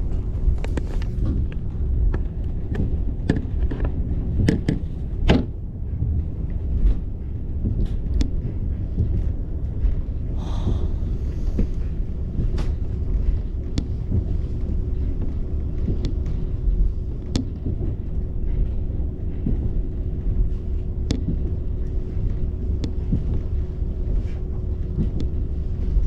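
Interior of a diesel railcar running along the line: a steady low rumble of engine and wheels, with a constant hum and scattered clicks and knocks from the wheels and the car body.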